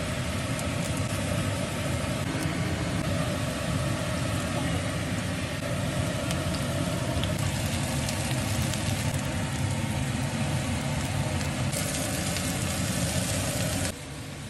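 Steady rumbling, hissing stovetop noise as broccoli and green beans cook in a frying pan on a gas burner, the hiss brightening near the end before it cuts off.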